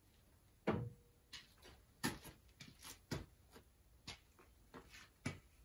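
About a dozen sharp knocks and clicks at irregular spacing, the sound of things being handled and set down on a workbench while a glue-up begins. The first knock is the loudest and rings briefly.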